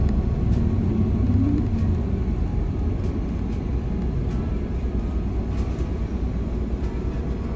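City bus engine and road rumble heard from inside the cabin while the bus is moving, steady and low, with a slight rise in engine pitch in the first two seconds.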